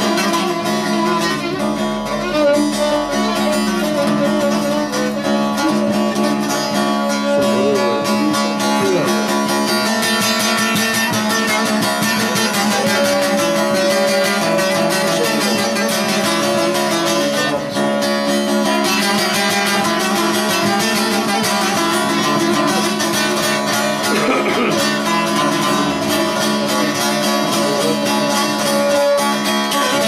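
Bağlama (long-necked Turkish saz) played instrumentally in a fast, unbroken run of rapid plucked strokes over ringing sustained notes.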